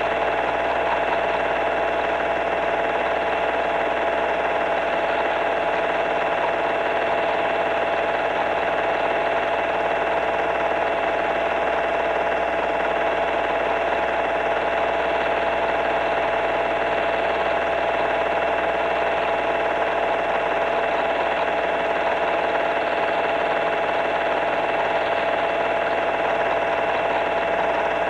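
Film projector running: a steady mechanical whirr with a constant hum that holds the same pitch and level throughout.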